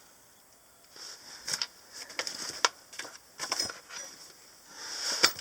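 Metal spanners clinking and knocking together as they are handled and sorted. The sharp clicks are scattered at first, starting about a second in, and come thicker near the end.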